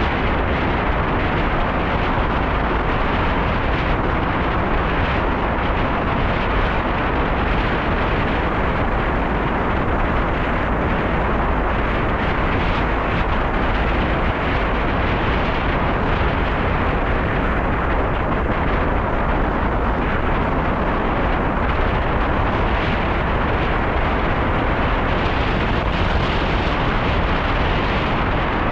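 Wind noise from riding a bicycle, rushing loudly and steadily over the camera's microphone with heavy low buffeting.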